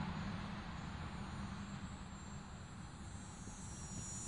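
Faint, steady low background rumble with no distinct event.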